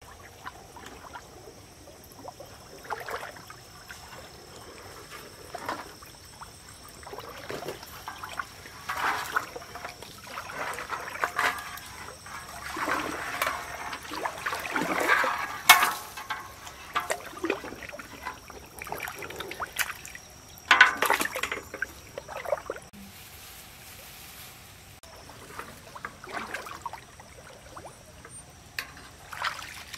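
Stream water sloshing and splashing irregularly as a person wades and gropes along the bottom with her hands, the loudest splashes about halfway through and again about two-thirds of the way through.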